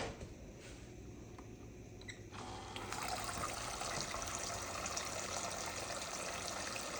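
Toy sink's faucet running a steady stream of water into its basin, switched on about two and a half seconds in after a few light clicks.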